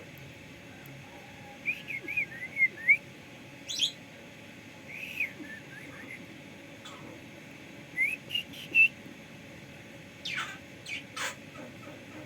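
Javan myna giving short whistled notes and chirps in several separate bursts a few seconds apart, ending with a few quick sharp downward sweeps.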